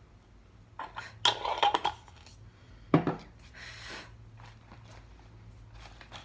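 Small makeup items being handled and set down on a hard surface. A short burst of clattering comes about a second in, a single sharp knock about three seconds in, and then a brief rustle.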